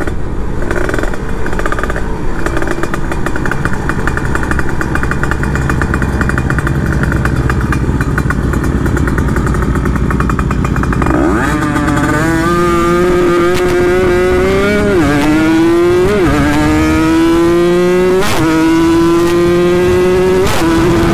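Kawasaki Ninja RR two-stroke single, running with a new cylinder block and fresh porting. It holds a steady speed at first, then accelerates hard from about halfway, its pitch climbing and dropping back at each of several upshifts.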